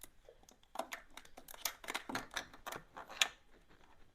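Hand tools clicking and scraping on a motorcycle's valve adjuster and lock nut during a valve clearance adjustment. A run of small sharp metal clicks starts about a second in, with the loudest near the end.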